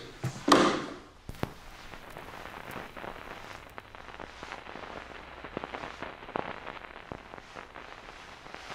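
Shoes tapping and scuffing on a wooden floor, a scatter of small irregular clicks, after a short vocal sound about half a second in.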